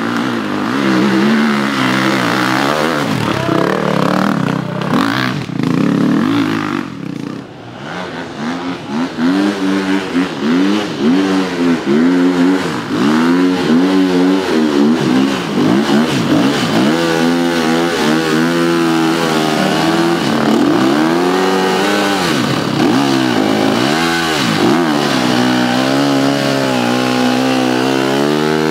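Enduro motorcycle engines revving hard in repeated rising and falling surges as the bikes climb a dirt trail. One bike passes and fades about a quarter of the way in; then another comes up close, its revs climbing and dropping again and again.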